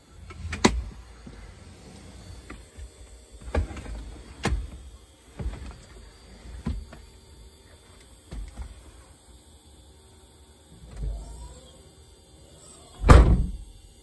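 A series of irregular thumps and knocks inside a vehicle, about eight of them spread out, with the hardest and loudest one near the end.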